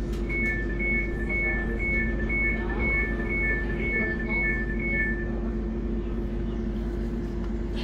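Door-closing warning beeps on a Class 710 electric train: about ten two-tone beeps, roughly two a second, which stop about five seconds in. The train's steady electrical hum runs underneath.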